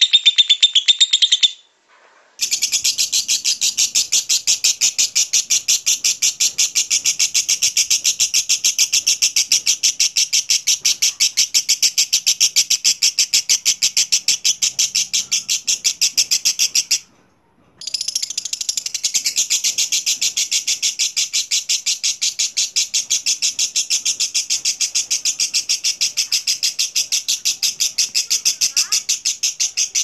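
Lovebird singing its long 'ngekek' chatter: a fast, even string of shrill high notes kept up without a pause. A short break comes near the start, then a run of about fourteen seconds, a brief break, and another long run.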